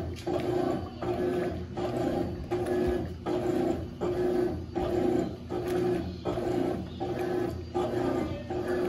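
Consul 12 kg CWS12 top-loading washing machine agitating: the motor drives the agitator back and forth in even strokes of about 0.6 s, each a humming run with a brief pause at every reversal.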